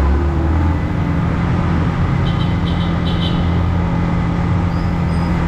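Motorcycle engine running steadily with road noise, with a few short high chirps about halfway through.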